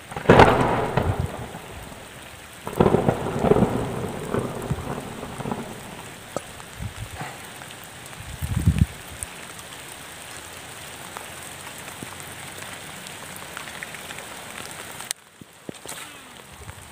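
Heavy rain hissing steadily on open lake water. Loud rumbling bursts come just after the start, again around three to four seconds in and briefly near nine seconds. The rain drops abruptly quieter near the end.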